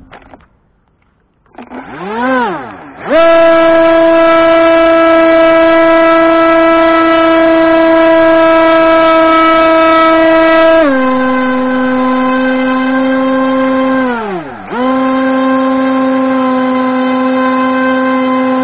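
Small electric motor of a radio-controlled model, spun up and briefly back down about two seconds in, then run up to a loud, steady high whine. Around eleven seconds it steps down to a lower steady speed, dips sharply and comes back up once near fourteen and a half seconds.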